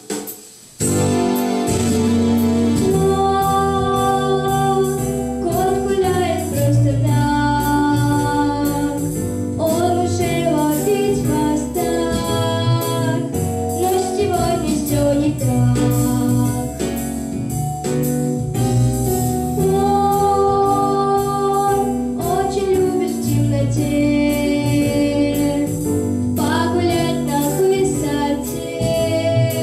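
A girl's voice singing a melody into a handheld microphone over a pop backing track.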